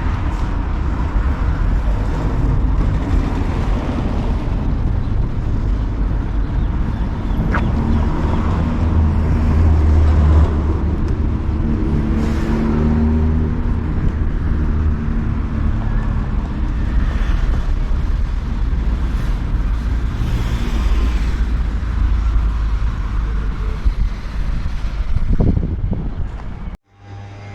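Steady low rumble of motor vehicle noise, with an engine tone rising and falling about halfway through; the sound drops out suddenly near the end.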